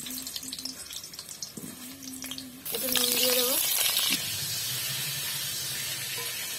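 Whole pricked potatoes frying in hot oil in a kadai, sizzling; about two and a half seconds in the sizzle turns suddenly much louder and fuller and stays that way.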